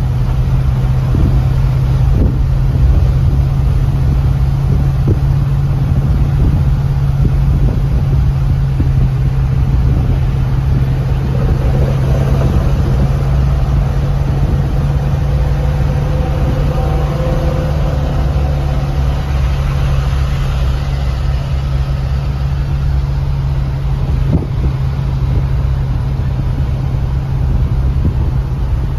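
Inside the cab of a 1979 Ford pickup on the move: the engine's steady low hum and road noise at cruising speed, with occasional knocks. About halfway through, the note of a passing semi-truck rises and fades over it.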